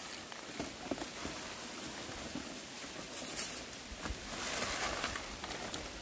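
Rustling and light crackling of dry fallen leaves and twigs as a person moves through brush on a steep slope, with a few faint clicks. It gets a little louder about four seconds in.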